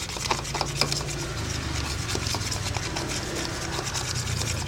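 A glue-based slime mixture being worked in a plastic container, with many irregular small clicks and scrapes over a steady low hum.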